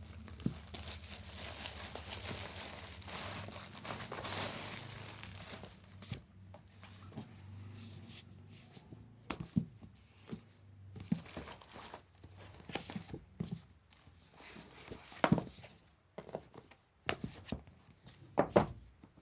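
Packaging being torn open and crumpled by hand: a continuous rustling for the first six seconds or so, then scattered crinkles and sharp crackles.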